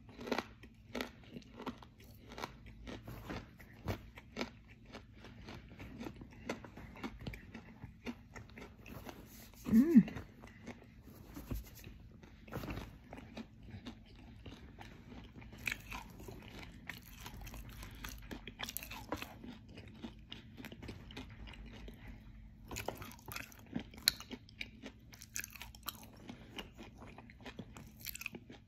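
Crunchy edible clay being bitten and chewed, a dense run of crisp, irregular crunches, with a brief hum from the eater about ten seconds in.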